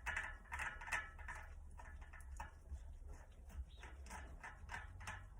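Light, irregular metallic clicking and ticking as a bike hub's bearing cone is wound by hand onto the threaded axle. The clicks are firmer in the first second and lighter after.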